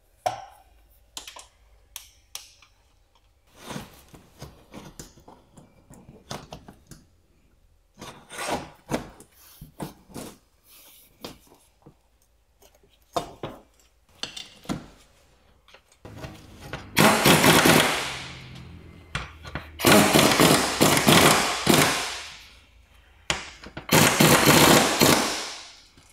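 Tools clinking and knocking on metal. Then a power wrench runs in three loud bursts of about two seconds each, a rapid hammering that fades out at the end of each burst.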